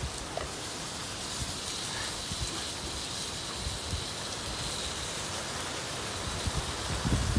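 Chicken thighs frying in a pan over an open wood fire, a steady rain-like sizzle, while the pan is stirred with a wooden spatula. Low rumbles come near the start and near the end.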